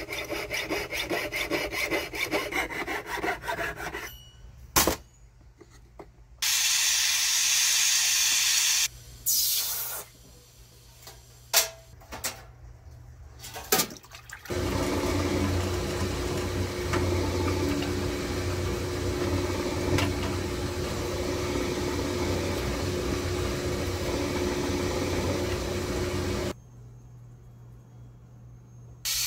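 A jeweller's saw cutting through a sterling silver bar, a fast even rhythm of strokes for about four seconds. After it come a few sharp clicks, short loud bursts of hissing noise, and from about halfway a long steady rushing noise with a low hum that stops shortly before the end.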